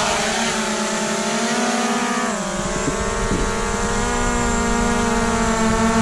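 DJI Air 2S quadcopter's four motors and propellers spinning as it lifts off the table and hovers. The whine holds several steady tones together, with a brief dip in pitch about two seconds in before it settles.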